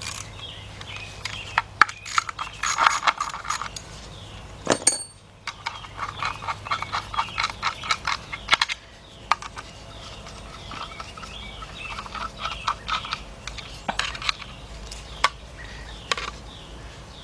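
A ratchet clicking in quick runs, with scattered metal clinks, as the bolts holding the filter to an automatic transmission's valve body are removed.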